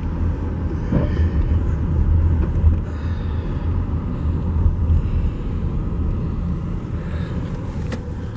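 Car creeping along a rough, flood-damaged road, heard from inside the cabin: a steady low rumble of engine and tyres, with a sharp click near the end.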